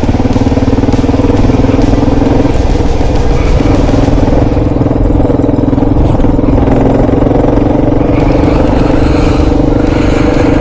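Kawasaki KLR650's single-cylinder four-stroke engine running steadily under way, its note dipping briefly about three seconds in.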